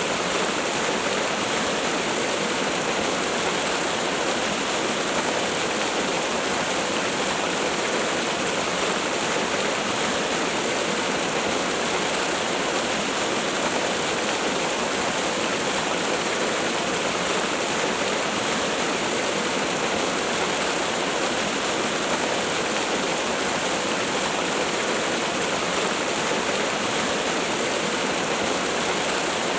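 Waterfall: water falling and rushing in a steady, unbroken wash.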